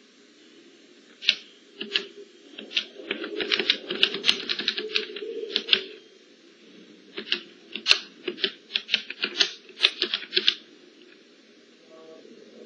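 Calculator keys being pressed: a quick run of short clicks, then a brief pause and a second run, as a multiplication is keyed in.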